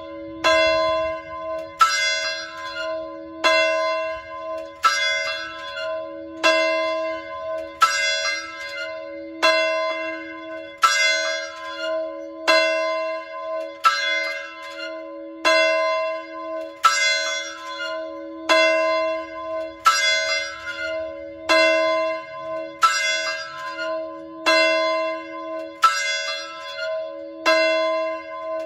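Large fire alarm bell struck about once every second and a half, each stroke ringing on into the next: a fire bell sounding the alarm to call out volunteer firefighters.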